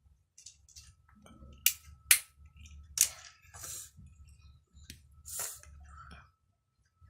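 Wooden toy blocks knocking together in a few sharp clacks, the loudest about two seconds in, among softer shuffling noises.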